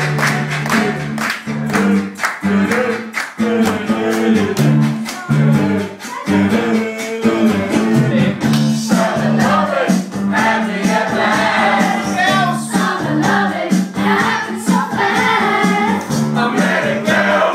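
A group of people singing along to guitar music, clapping in time through roughly the first half.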